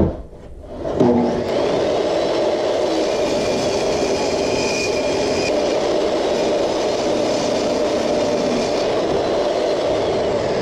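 Small jobsite table saw starting up about a second in and running steadily as a hardwood board is fed through the blade, cutting the first pass of a groove (dado) along it.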